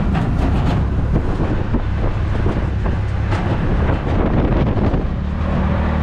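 Tuk-tuk (auto-rickshaw) engine running steadily while it drives along the road, heard from the passenger seat, with road noise and wind buffeting the microphone.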